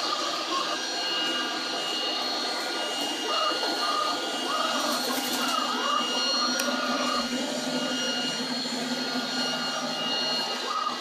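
XRobot 510D robot vacuum cleaner running steadily: the motor and brushes give a constant hum with a high, even whine.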